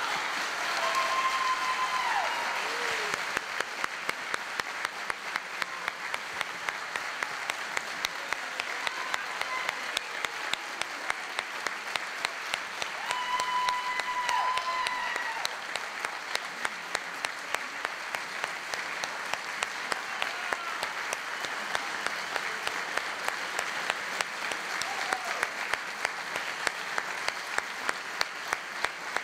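Concert audience applauding steadily after a voice-and-piano recital, with sharp claps standing out at a steady beat of about two a second. Voices call out and hold twice: about a second in, and again near the middle.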